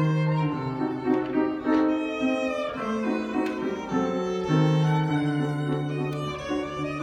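Solo violin played live with the bow: a melody of held notes changing about every half second to second. Sustained lower notes sound beneath it, below the violin's range.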